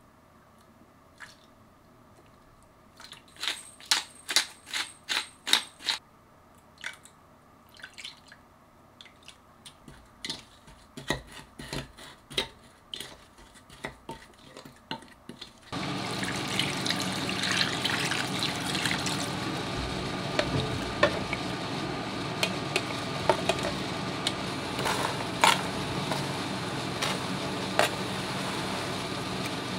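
A spoon clinking and scraping against a glass bowl while a thick seasoning of garlic, sugar, chili powder and soy sauce is stirred, with a quick run of sharp taps a few seconds in and then slower clinks. About sixteen seconds in a steady hiss starts suddenly and runs on under further clinks and knocks.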